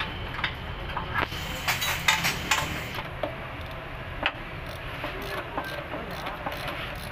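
Hand ratchet wrench clicking and metal tools clinking as bolts are undone on a Honda City's rack-and-pinion steering gear during teardown. A few sharp metal clinks in the first three seconds give way to lighter, quick ratchet clicks near the end.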